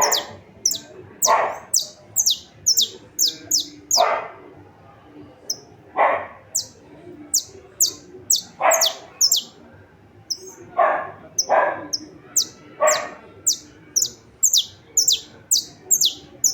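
Saffron finch singing: a long run of short, sharply falling high notes, about two a second, with brief pauses. Several short, lower sounds come in between the notes at irregular intervals.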